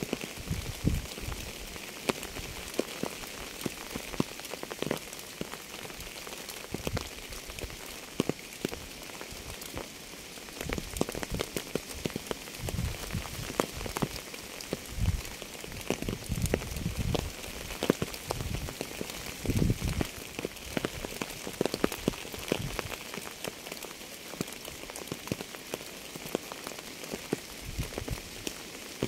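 Steady rain falling on a surface, a continuous hiss dotted with the sharp ticks of individual drops and the occasional heavier, duller drip.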